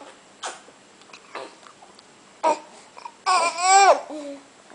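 A pet vocalizing: a few short calls, then one long call that rises and falls in pitch about three seconds in, followed by a brief lower one.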